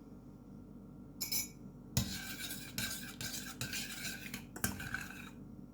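A spoon stirring a hot milk and egg-yolk mixture in a pot, clinking and scraping against the sides. After a short scrape about a second in, the stirring runs steadily from about two seconds in and pauses briefly near the end.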